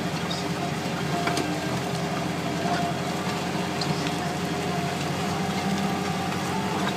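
New Holland T6020 tractor's diesel engine running steadily under load while pulling a Kverneland plough, with a few light clicks and knocks.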